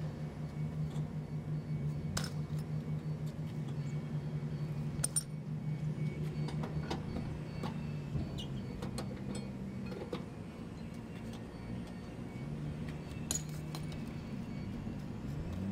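Semi-truck diesel engine idling steadily, its pitch rising slightly near the end, with scattered sharp metallic clinks over it, the loudest about two, five and thirteen seconds in.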